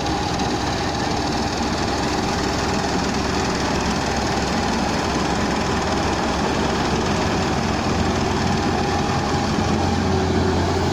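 Rice combine harvester running steadily, a dense, even machine noise with a steady hum through it.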